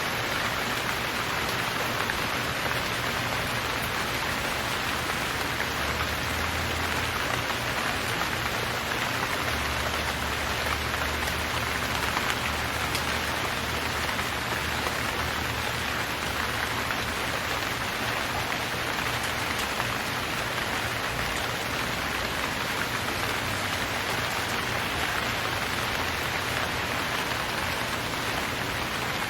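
Steady rain falling, an even hiss of many drops hitting surfaces, with a faint low rumble partway through.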